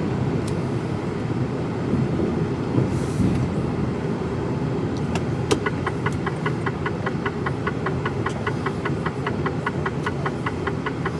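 Mercedes Actros lorry heard from inside the cab: steady engine and road noise. About halfway through, a rapid, regular ticking starts, typical of the turn-signal indicator clicking.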